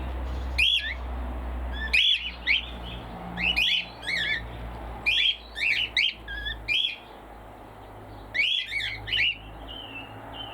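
A flock of cockatiels squawking: short shrill calls that rise and fall in pitch, coming in clusters every second or two.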